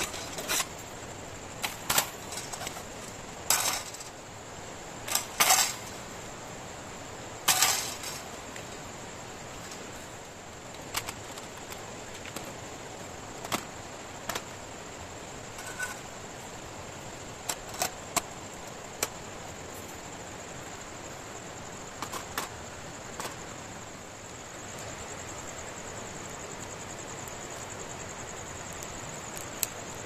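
Sharp metallic clicks and clanks of the thin stainless-steel panels of a folding fire pit being handled and slotted together, several loud ones in the first eight seconds, then scattered single clicks as twigs are laid in.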